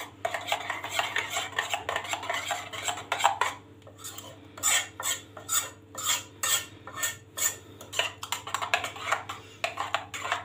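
Spoon stirring water and spices in a pot, scraping and clinking against the sides. The strokes are dense at first, then after a short lull about three and a half seconds in come as regular clinks about twice a second.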